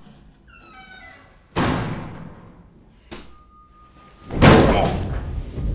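A hard slam about a second and a half in, a sharp click with a thin electric buzz after it near the middle, then the loudest slam, the Joker's head smashed down onto the interrogation table, with a booming tail.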